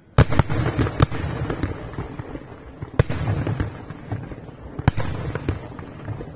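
Aerial firework shells bursting: a sudden loud bang just after the start, then sharp reports about a second in, at three seconds and near five seconds, over a dense continuous crackle.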